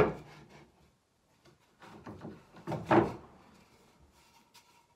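Wooden boards set down onto a wooden frame on a workbench: a sharp wood-on-wood knock at the start, then a second board knocking and sliding into place about three seconds in.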